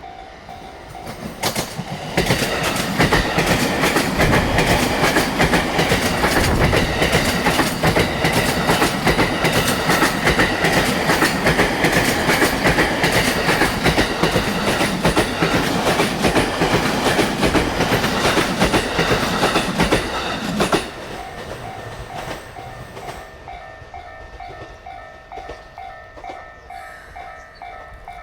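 A level-crossing warning bell rings with an even, repeating beat. From about two seconds in, a JR E231 series 1000 electric train of two coupled sets passes close by, loud for about nineteen seconds, its wheels clattering rapidly over the rail joints. The train noise cuts off suddenly as it clears, and the crossing bell is heard ringing again.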